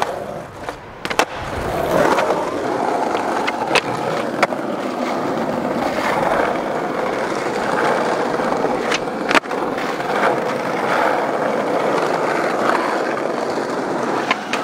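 Skateboard wheels rolling steadily over concrete and paving tiles, with a few sharp clacks of the board and trucks.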